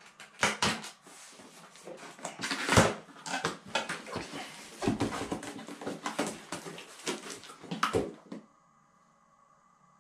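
Cardboard shipping box being torn open by hand: tape ripping, flaps scraping and packaging rustling in irregular crackles, stopping about eight seconds in.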